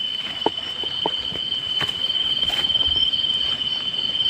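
Night insect chorus: crickets holding a steady high-pitched drone with a fainter pulsing trill above it, and a few light clicks in the first half.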